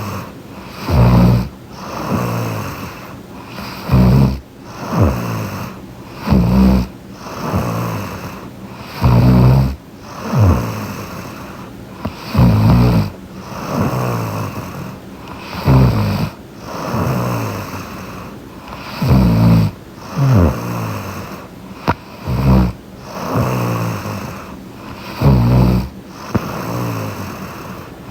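A young woman snoring in her sleep, close to the microphone: a loud snore about every three seconds, with quieter breathing between.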